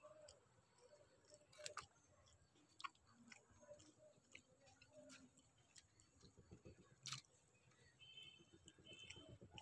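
Faint, close chewing of a mouthful of rice and curry, with a few sharp clicks of fingers and food against steel dishes.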